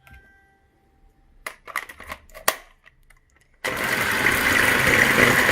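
A few clinks and knocks, then an electric mixer switched on about two-thirds of the way in, running steadily as it starts whipping egg whites.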